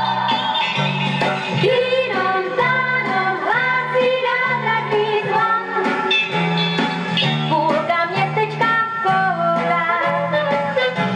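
A 1971 Czech pop song recording: orchestral accompaniment with a steady stepping bass line and melodic lines above it, singing among them.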